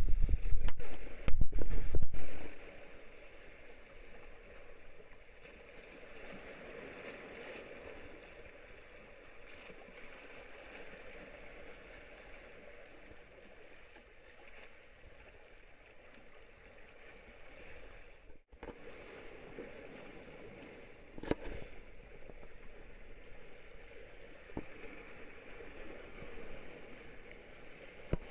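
Sea water washing and gurgling against the boulders of a rock jetty, a steady surf noise, after a loud rumble on the microphone during the first two seconds. A single sharp knock comes about two-thirds of the way through.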